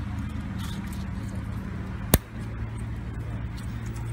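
One sharp plastic click about two seconds in, as a propeller guard is snapped onto an arm of an Eachine E58 folding drone, over a steady low machine hum.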